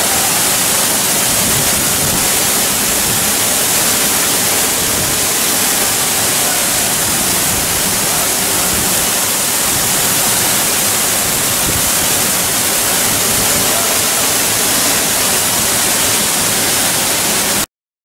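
Teerathgarh Falls, a 91-metre single-drop waterfall, pounding into its pool close by: a loud, steady rushing of falling water. The sound cuts out to silence for a moment near the end.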